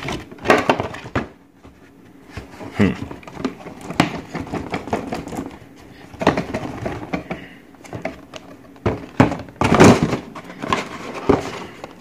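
Cardboard packaging box being handled and tipped about, making irregular rustles, scrapes and knocks, with a louder cluster of knocks about nine to ten seconds in.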